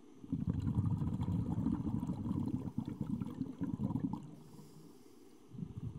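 Low bubbling water rumble heard underwater, in one long burst of about four seconds that stops, then starts again shortly before the end.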